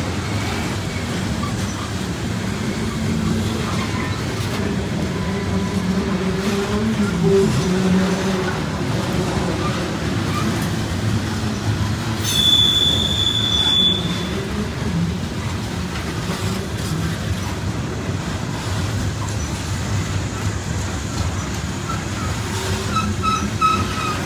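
Norfolk Southern coal hopper cars rolling past: a steady rumble of steel wheels on rail, with a single high-pitched wheel squeal lasting about a second and a half around the middle and fainter squealing near the end.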